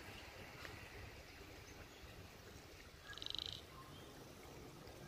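A short, rapid, high-pitched trill call from a small animal, about three seconds in, over faint outdoor background.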